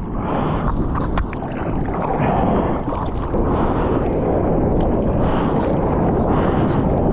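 Sea water splashing and churning close to a surfer paddling a surfboard, hand strokes pulling through the water, with wind on the microphone. A loud, steady rush of noise.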